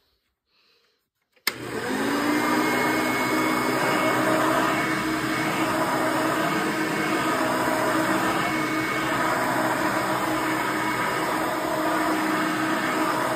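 1989 Hoover Elite 350 upright vacuum cleaner switched on about a second and a half in: a click, then the motor spins up with a short rising whine and runs steadily.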